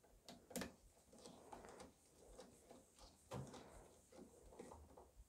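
Faint, scattered clicks and light knocks as a 3D printer hotend assembly and its plastic cable chain are handled, the sharpest click about half a second in; otherwise near silence.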